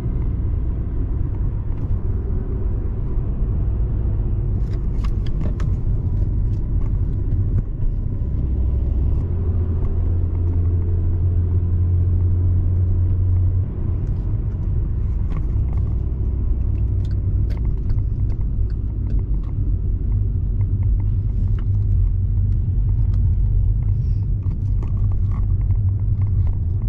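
A car driving: a steady low engine and road rumble. The engine note shifts a few times and drops suddenly about thirteen seconds in.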